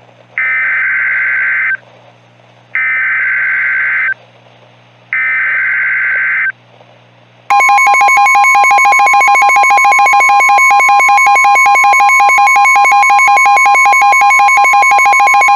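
Weather radio emergency alert: three short, screechy bursts of SAME digital header data, then a loud, steady, buzzy attention tone, which starts about halfway in and continues. It signals the start of a new warning message.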